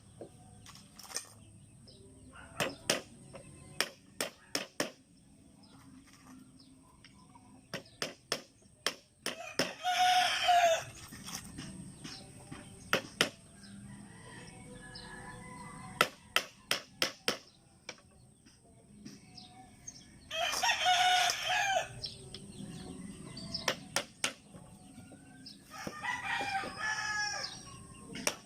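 A rooster crowing three times, about ten seconds in, about twenty seconds in and near the end, each crow lasting a second or more. Between the crows come runs of sharp, quick knocks, like hammer blows on wood.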